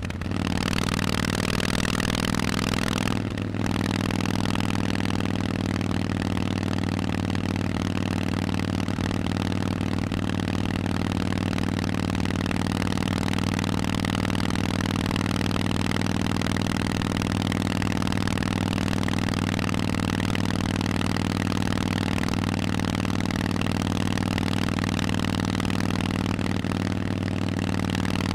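Harley-Davidson Forty-Eight's 1200 cc air-cooled V-twin running through Vance & Hines exhausts, pulling at a steady speed, with a brief dip in the engine note about three seconds in.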